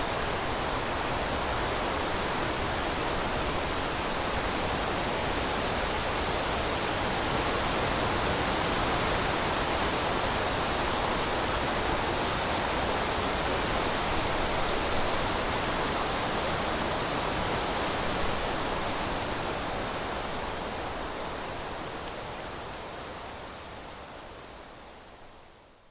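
A steady rushing noise, even and without any pitch, that fades out over the last several seconds.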